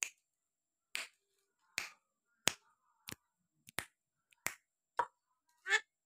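Javan myna giving a run of short, sharp click-like calls and chirps, about nine in six seconds, each one separate.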